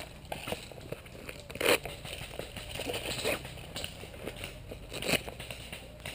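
Rustling and small clicks of an airsoft player handling gear while reloading, with two louder sharp cracks, one near two seconds in and one about five seconds in.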